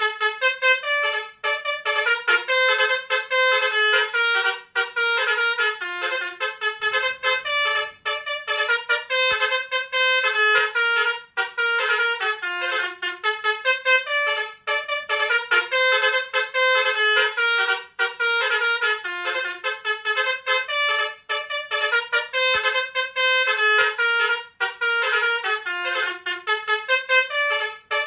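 Multi-tone 'telolet' bus horn (basuri horn) playing a fast tune of stepped notes, one note after another with only brief breaks.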